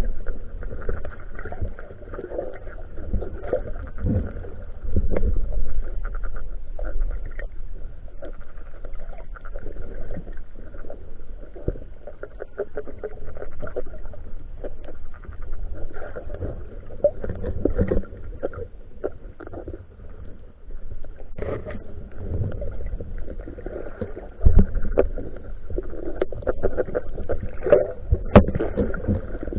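Muffled underwater sound picked up through a camera's waterproof housing: a steady wash of moving water with irregular knocks and thumps, the hardest about two-thirds of the way through and again near the end.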